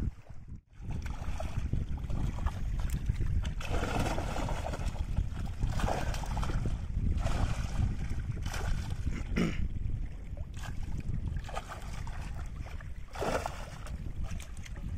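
Shallow river water splashing and sloshing as a mesh bag full of fish is dipped and dragged through it around a wader's legs, a few separate splashes over a steady low rumble of wind on the microphone.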